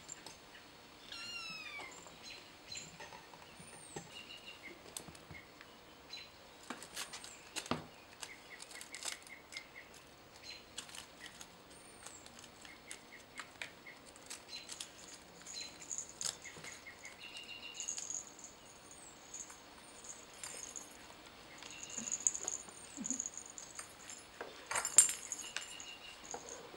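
Kittens playing on carpet: scattered light taps and rustles from paws and toys, a falling mew about a second in, and thin high chirping calls on and off throughout. A louder knock comes near the end.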